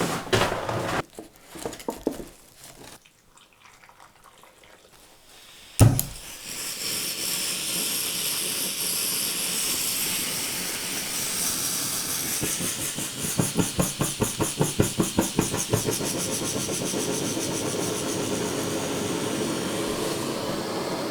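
Backpacking stove lit with a sharp click about six seconds in, then its burner hissing steadily under a pot of snow being melted for water, with a few seconds of fast, uneven pulsing in the middle. A few handling knocks come first.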